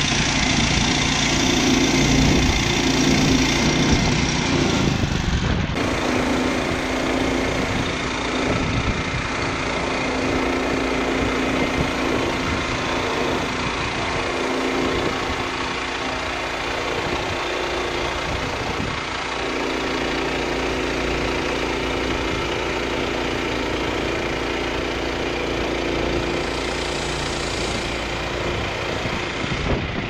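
Woodland Mills HM122 portable bandsaw mill running: its small gas engine drives the band blade through a fir log under load, with wind noise on the microphone. The sound changes abruptly about six seconds in.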